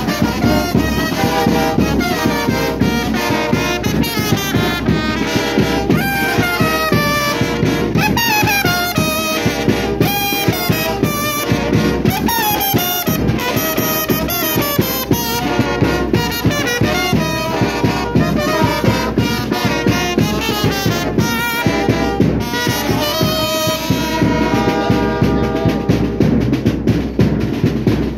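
Live brass band music: trumpets and trombones playing a lively tune over a bass drum and snare drum keeping a steady beat. Near the end the horns fade and the drums play on.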